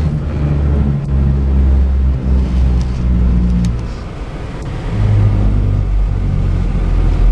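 Car tyres running over a roadside rumble strip, a loud, low, steady drone heard from inside the cab. It eases off about four seconds in and comes back a second later.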